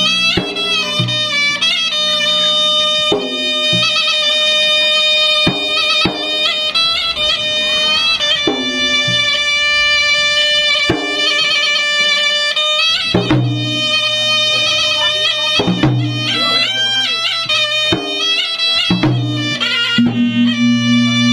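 A traditional Maros gendang ensemble playing: a reedy wind instrument plays a continuous, ornamented melody over rapid, irregular strikes of the gendang drums.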